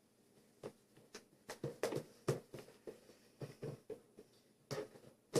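Soft, irregular taps and clicks, a few each second, with a sharper knock at the very end.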